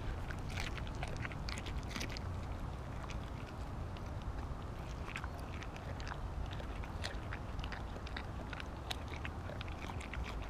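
Siberian husky chewing a whole raw mackerel: irregular crunches as its teeth work through the fish, over a low steady rumble.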